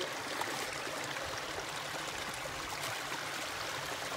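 Shallow rocky stream running steadily over stones, a continuous trickling and flowing of water.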